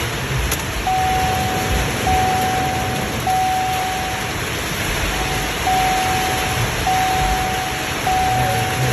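An electronic alarm sounding a steady mid-pitched tone in long beeps of about a second each, starting about a second in, over a constant rushing noise.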